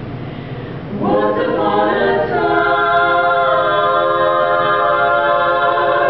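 Women's a cappella quartet singing in close harmony, starting about a second in and then holding long sustained chords. A low steady room rumble comes before the voices enter.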